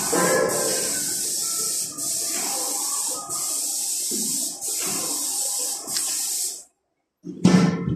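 Airless paint spray gun on a Mark V airless sprayer, spraying coating in a steady high hiss broken by short pauses about every second and a half as the trigger is let off, then cutting off about two thirds of the way in. A short, louder noise follows near the end.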